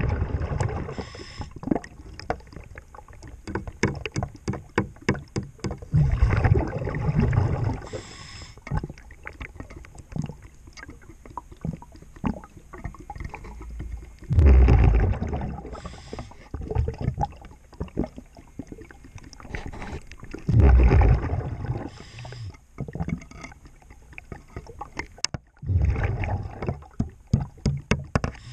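Underwater recording of a diver's regulator breathing: a high hiss on each breath in, and a heavy rumble of exhaust bubbles about every five to six seconds. Between breaths there is a steady run of small sharp clicks from a hand tool working against metal on the boat's underwater fittings while a zinc anode is replaced.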